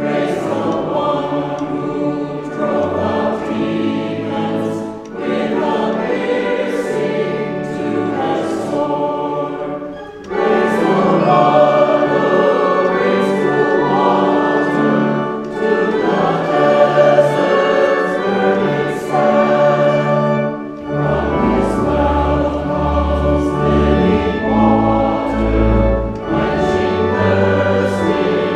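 A choir singing a hymn, phrase by phrase. Deep bass notes join the accompaniment about two-thirds of the way through.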